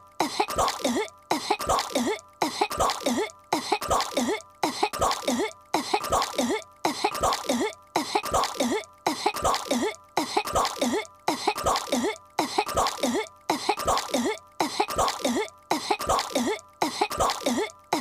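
A cartoon girl's voice coughing on a piece of gum: a short fit of several quick, hacking coughs, looped over and over with a brief gap about every second.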